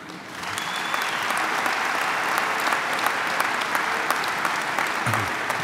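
Audience applauding, a steady dense clapping that builds up within the first half second and holds, with a brief high whistle-like tone about half a second in.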